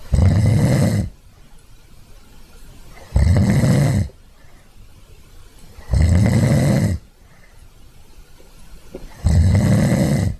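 A German pointer dog snoring: four loud snores, each lasting about a second, coming about every three seconds.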